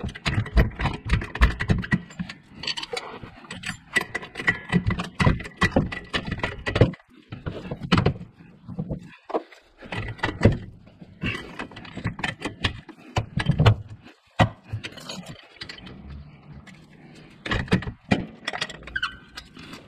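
Irregular metallic clicks, clanks and rattles from a trolley jack being worked by its handle under a car, thickest in the first several seconds and more scattered after.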